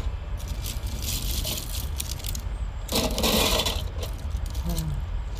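Crisp fried rose cookies (achu murukku) clattering and clinking as they are handled on a steel plate, in a few short bursts, the loudest about three seconds in, over a steady low hum.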